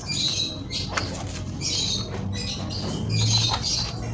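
Plastic tripod parts being handled and fitted together: rustling and scraping in short spells, with a sharp click about a second in, over a steady low hum that grows louder near the end.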